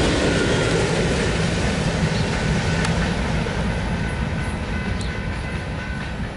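Freight train with a trailing BNSF diesel locomotive and covered hopper cars rumbling over the rails as it moves away. The engine hum and wheel noise fade gradually.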